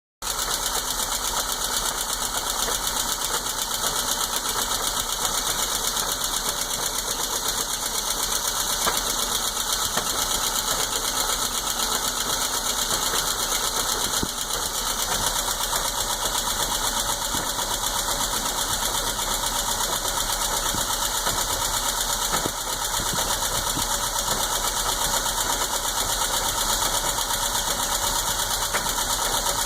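1977 Triumph Spitfire's four-cylinder engine idling steadily with a knocking or popping sound in its rhythm, a noise whose cause the owner has not found.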